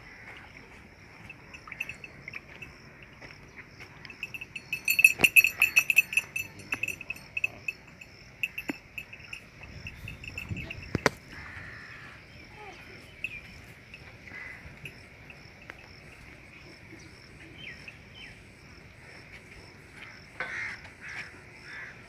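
Insects chirping steadily, with a faint evenly pulsing chirp above them. About five seconds in there is a louder run of rapid chirps, and a single sharp click comes near the middle.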